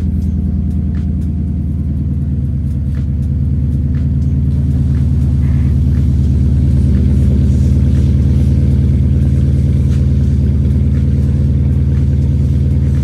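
Porsche Cayenne S (955) V8 idling steadily just after being started, exhaust straight-piped with the muffler deleted, giving a deep, loud rumble.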